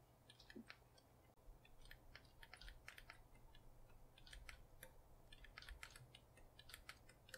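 Faint, irregular clicks and taps of a computer mouse being clicked and dragged, over near-silent room tone.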